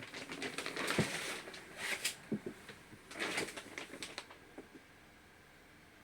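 Irregular clicks, knocks and rustling, like things being handled, with three short bursts of scraping noise. It stops a little before the fifth second.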